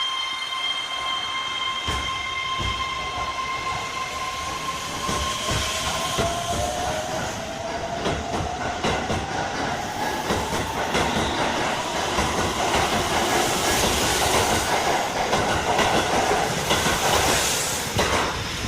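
Keihan electric train accelerating, its motor whine rising in pitch while the wheels clack over rail joints. The sound grows louder toward the end and falls away just before it.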